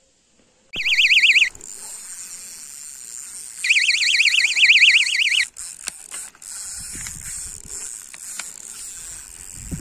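Electronic carp bite alarm warbling in two loud bursts, about a second in and again from about four seconds in, signalling a carp taking line. Quieter rustling and handling of the rod in the grass follow.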